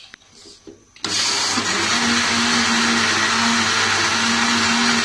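Electric blender switched on about a second in, its motor then running steadily as it whips yogurt, water and sugar into lassi. A few light clicks come just before it starts.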